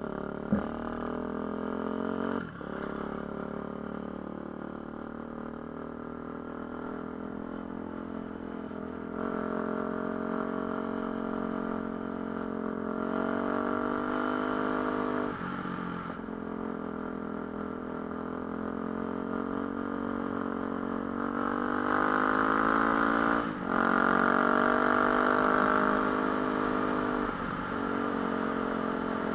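Enduro motorcycle engine under way, heard from on the bike. Its note climbs steadily through each gear and drops back briefly at a gear change, several times over.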